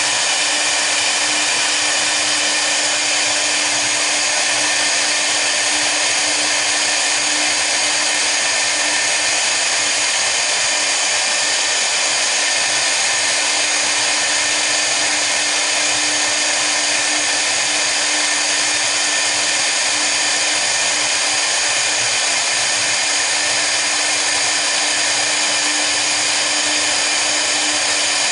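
Two spindles of a double-head CNC router running together, their V-bits engraving a board: a steady, unbroken hiss and whine with a constant low tone underneath.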